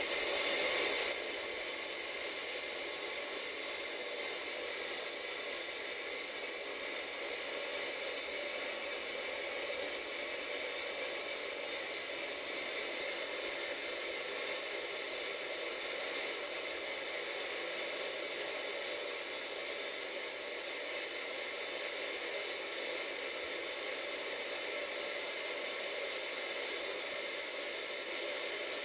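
Safety valve of the C12 66 steam tank locomotive blowing off while the engine stands, a steady hiss of escaping steam as it vents excess boiler pressure.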